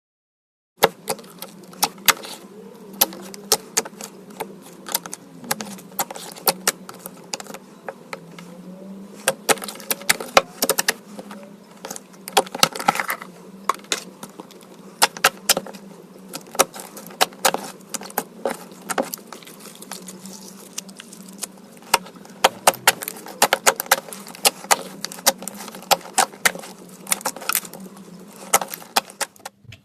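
Slime being squished and pressed by hand, giving a dense run of sharp, irregular clicks and crackling pops. The sound starts about a second in and stops just before the end.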